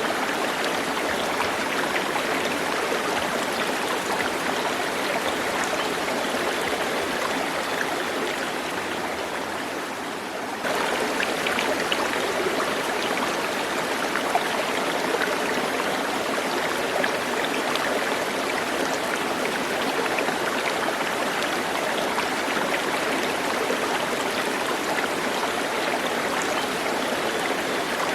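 Flowing stream water, a steady rushing babble. It fades a little about ten seconds in, then comes back abruptly at full level.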